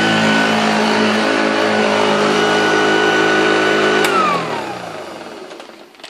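Hoover Junior upright vacuum cleaner running steadily, then switched off with a click about four seconds in, its motor winding down in a falling whine that fades out.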